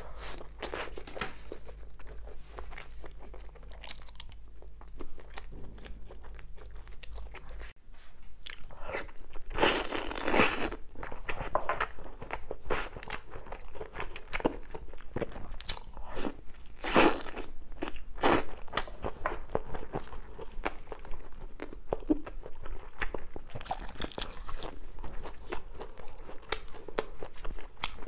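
Close-up eating sounds of fried chicken: crunchy bites and chewing in irregular clicks, with a few louder crunches.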